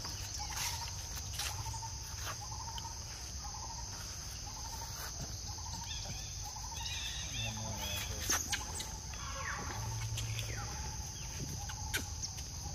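Steady high-pitched insect drone with a bird repeating a short note over and over, about once or twice a second. A brief flurry of higher chirps comes about seven seconds in, and there are scattered small clicks.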